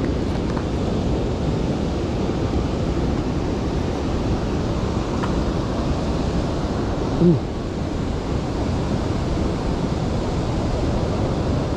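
Steady rushing noise of wind on the microphone and flowing river water below a dam spillway. About seven seconds in, a brief low sound falls in pitch.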